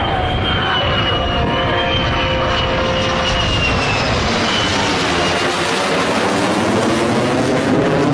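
Fighter jet engine noise: a loud, steady rushing with a high whine that wavers and fades out about halfway through.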